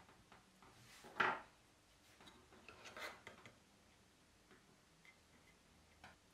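Small handling sounds of tweezers and parts on a circuit board: a sharp clatter about a second in, a looser patch of small scrapes and taps around three seconds, and a light click near the end as a part is pressed onto the board.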